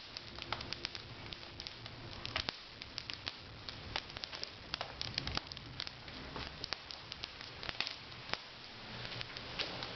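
Wood fire crackling in a fireplace: irregular sharp pops and snaps over a soft steady hiss.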